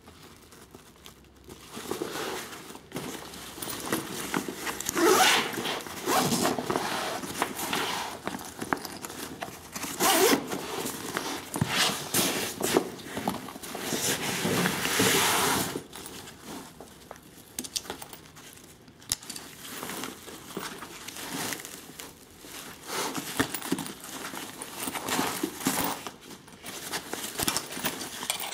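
Tasmanian Tiger Mission Pack backpack being handled: its nylon fabric rustling and swishing, with straps and plastic buckles shifting, in irregular bursts that are loudest through the first half.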